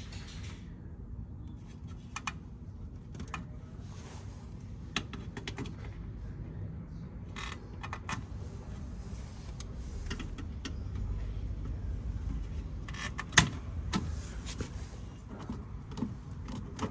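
Scattered clicks and light metallic clinks of tools and parts being handled, with one sharper click about thirteen seconds in, over a steady low background rumble.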